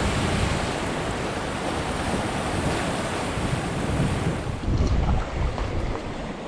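Wind buffeting the microphone over surf washing against a rocky shore, with heavy low gusts near the start and again about five seconds in.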